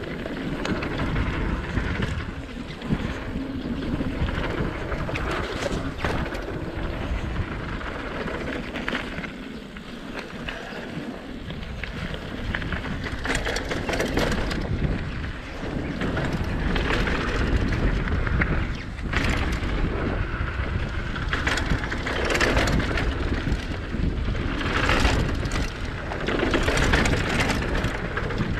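Mountain bike rolling down a dirt flow trail: steady wind noise over the microphone with low tyre rumble. It swells and eases with speed and is broken by a few sharp knocks from bumps.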